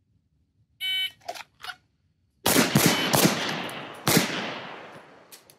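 Electronic shot-timer start beep, followed about a second and a half later by a rapid string of handgun shots from several shooters firing at once, the loudest near the middle, each shot echoing and fading.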